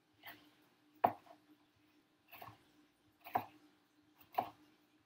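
Kitchen knife slicing a red bell pepper into strips on a plastic cutting board: five short cuts about a second apart, each ending in a sharp knock of the blade on the board, the second the loudest.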